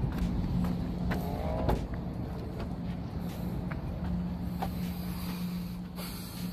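Mazdaspeed 3's 2.3 MZR turbo four-cylinder idling with a steady low hum, with scattered light clicks and a brief higher tone about a second in.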